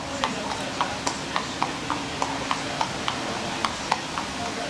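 A horse's hooves clopping steadily on asphalt at a walk, about three to four hoofbeats a second.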